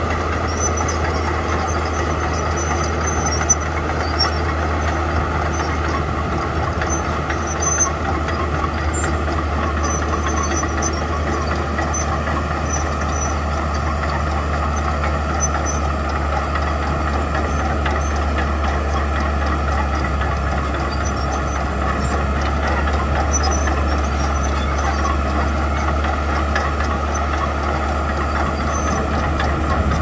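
Komatsu D41E crawler bulldozer running steadily with a low diesel drone while pushing and spreading gravel, with faint clinks scattered through it.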